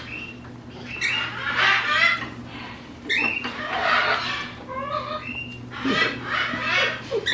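Parrots squawking, several harsh screeching calls in quick succession, over a steady low hum.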